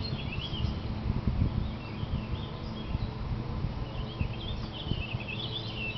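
Birds chirping in short, squeaky, wavering phrases, mostly near the start and again about four to five seconds in. Underneath runs a low, steady rumble with a few soft thumps.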